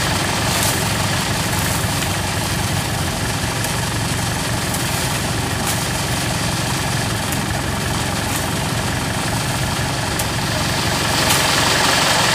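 Kubota combine harvester's diesel engine idling steadily.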